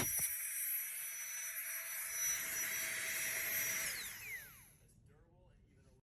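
Small battery-powered portable air pump's motor running with a steady whine, then switched off about four seconds in, its pitch falling as it spins down to a stop.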